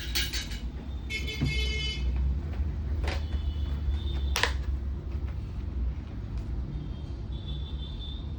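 Low steady rumble of road traffic with a short vehicle horn toot about a second in, and two sharp clicks near the middle.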